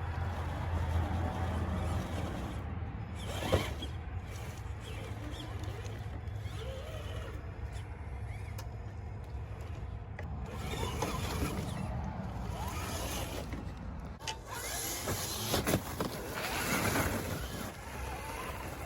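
Traxxas TRX4 crawler's brushed electric motor and drivetrain whirring as the truck crawls, with a sharp knock about three and a half seconds in and louder stretches near the end.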